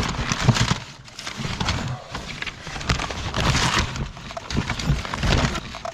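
Irregular clattering, knocks and rustling of objects being handled and rummaged through.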